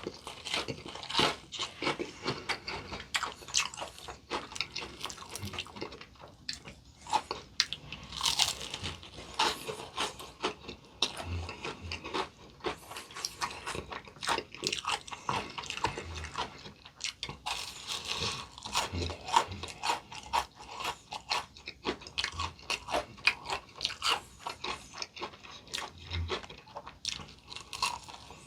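Close-miked crunching and chewing of crispy, potato-coated fried chicken, with a steady run of irregular crackling bites.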